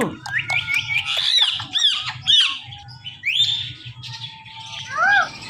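Indian ringneck parakeet squawking: a quick run of rising and arching high-pitched chirps and screeches, another rising call a moment later, then after a quieter pause one more arched call near the end.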